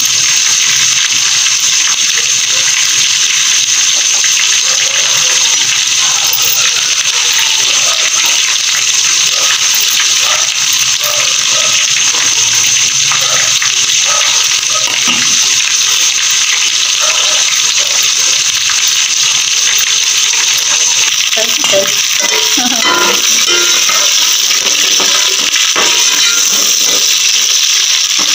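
A steady, even hiss throughout, with faint voices in the background in the middle and again near the end.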